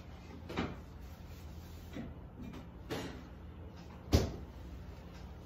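A few short knocks and clunks from handling a piping bag and a metal cake ring on a counter, the loudest about four seconds in, over a low steady hum.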